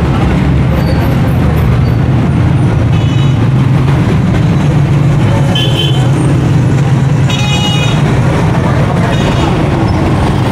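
Loud, steady street traffic rumble with four short vehicle horn toots, the longest about three-quarters of the way through.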